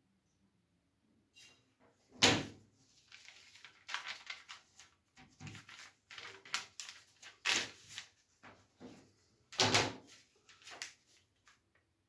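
Paper pattern sheets rustling and sliding on a wooden table, with knocks as a long pattern-making ruler is moved and set down. Three knocks stand out, at about two seconds, near the middle and near the end.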